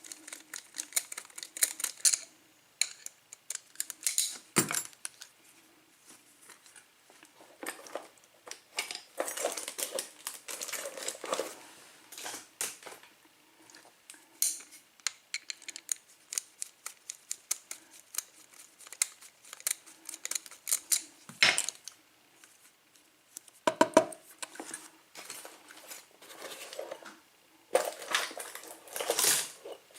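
Padlock and small metal tools being handled on a bench: irregular clicking, clinking and short scrapes of metal on metal, with a few sharper knocks, as the lock is worked on to take it apart.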